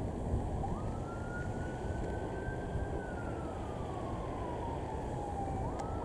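A siren wailing faintly: a single tone sweeps up about a second in, holds high, glides slowly down and starts rising again near the end, over a steady low rumble.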